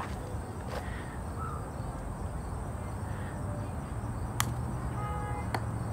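A mini golf putter strikes the ball once with a sharp click, a hard putt. About a second later there is a lighter knock.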